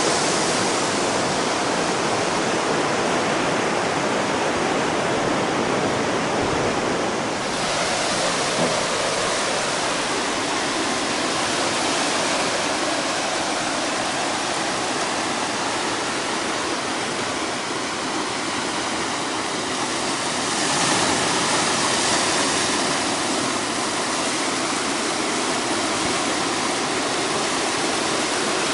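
Ocean surf washing up a sandy beach and around rocks: a steady rush of water.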